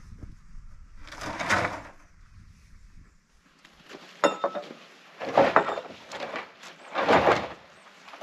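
Milled wooden boards knocking and scraping against each other as they are lifted and shifted on a trailer, in several short bursts with sharp clicks in between.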